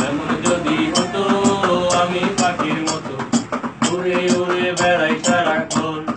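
Male voice singing a Bengali song over an acoustic guitar strummed in a steady rhythm.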